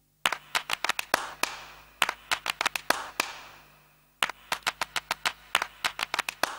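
Sharp hand claps in a quick syncopated rhythm, in two runs with a short pause between them about four seconds in; some claps ring out with a long echo.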